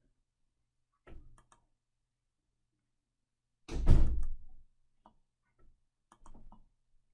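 Clicks and knocks from someone working a computer's mouse and keyboard, in short groups, with one louder, deeper thump about four seconds in.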